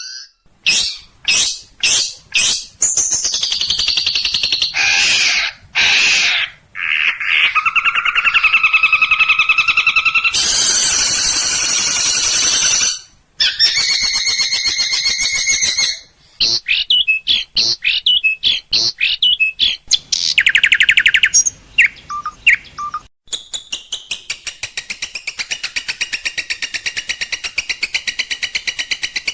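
Long-tailed shrike (cendet) song full of mimicked phrases: sharp high notes, chattering trills and buzzy stretches that switch abruptly every few seconds, then a long, fast, even rattling trill in the last third.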